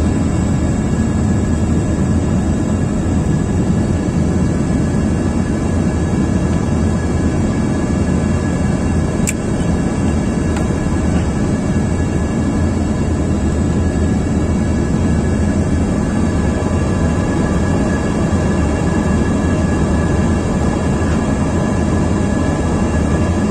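Steady, loud cabin rumble of a jet airliner on approach with its flaps extended: engine and airflow noise heard through the window seat, with faint steady tones above it and a single brief click about nine seconds in.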